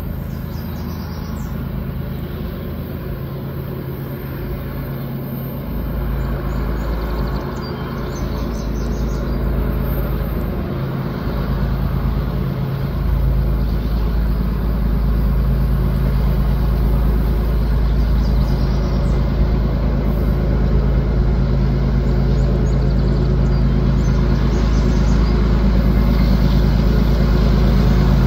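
Diesel freight locomotives pulling a heavy train upgrade, their engines' low, steady drone growing louder as the train approaches. Faint bird chirps come through above it.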